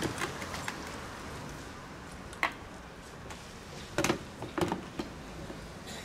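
A few short knocks and clatters of hoses and a small electric pump being handled and moved, over a steady background hiss.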